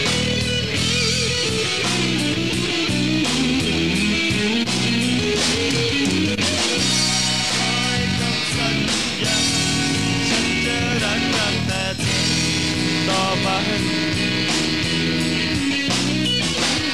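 Live rock band playing: an electric guitar plays a melodic lead line over bass and drums.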